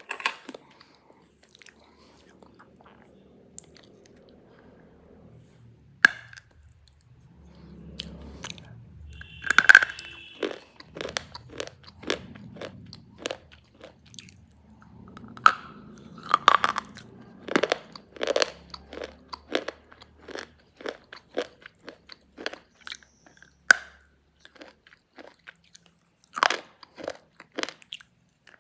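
Black slate pencils being bitten and chewed close to the microphone: sharp snaps as pieces break off, then crisp, rapid crunching. It is faint for the first few seconds, and the first loud snap comes about six seconds in.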